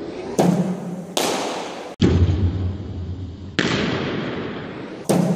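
Sharp, echoing bangs of a cricket ball being fired by a bowling machine and struck by the bat inside an indoor net hall, four in all. A steady low hum runs between them for a second or so in the middle.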